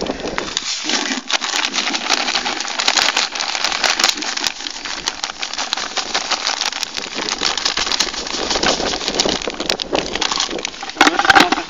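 Dry roach groundbait poured from its bag into a plastic bowl: a steady hissing rustle of fine crumbs, dotted with small crackling ticks as the grains land.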